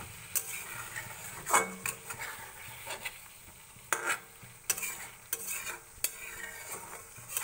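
Spatula stirring fried pointed gourds in mustard paste in a metal kadai: irregular scrapes and knocks against the pan over a soft, steady sizzle of hot oil.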